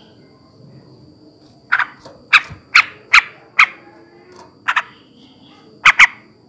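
Male yellow-vented bulbul (trucukan) giving a run of loud, short, harsh call notes, about eight of them, some in quick pairs. The calls begin after about a second and a half of quiet.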